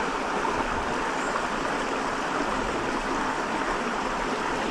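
Steady rushing of a small stream's running water, an even hiss with no breaks.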